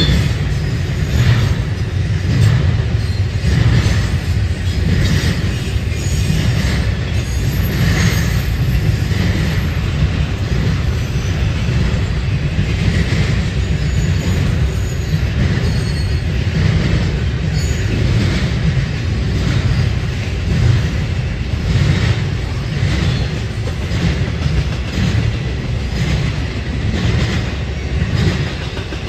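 Norfolk Southern intermodal freight train rolling past: a steady low rumble from the double-stack container cars and trailer flatcars, with wheels clicking over the rail joints and a faint wheel squeal now and then.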